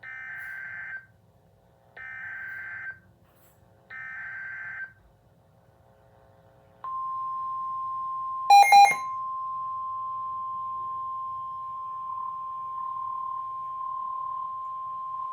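Emergency Alert System activation for a flash flood warning: three one-second bursts of the SAME digital header data, a second apart, then the single steady National Weather Service warning alarm tone announcing that a warning message follows. About a second and a half into the tone, two short, very loud beeps cut in over it.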